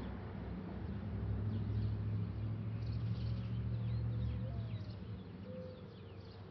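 A vehicle's low engine hum fading away over about five seconds, while small birds chirp with short, quick falling notes from about two seconds in.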